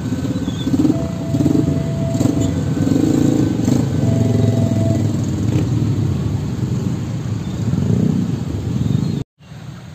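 Engines of many motorcycles running and pulling away as they cross the railway tracks, with a steady tone sounding a few times over them. The sound cuts off abruptly near the end.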